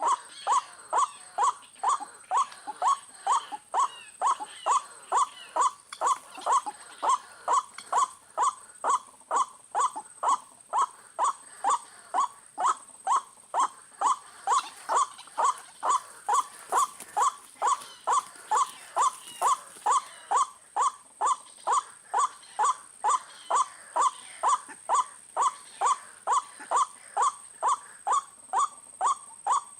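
White-breasted waterhen call: a short harsh note repeated very steadily, about twice a second, with a steady high-pitched whine behind it.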